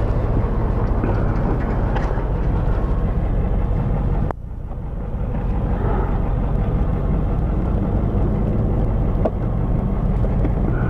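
Scooter engine running while riding, with wind noise rushing over the microphone. About four seconds in, the sound drops abruptly, then builds back up to a steady run.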